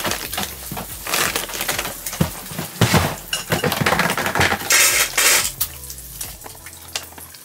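Knocks and clatter of a clear plastic storage bin being shifted on a hard floor and a plastic water bottle being handled. Near the end, water is poured from the bottle into a steel dog bowl.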